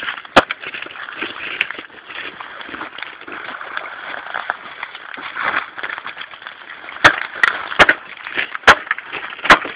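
Sharp chopping strikes: one about half a second in, then four more near the end, just under a second apart, over a steady hiss.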